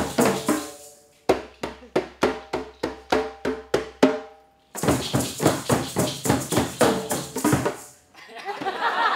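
Djembes and bongos played by hand together in a steady group rhythm of about four strokes a second, with the drum heads ringing. The group stops together about a second in and again about halfway, then comes back in each time. The drumming dies away near the end, and voices and laughter follow.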